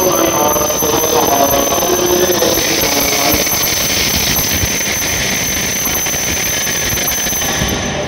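E7-series Shinkansen train rolling slowly into the platform as it brakes to a stop, with a steady high squeal over the rolling noise. A voice is heard over it in the first few seconds.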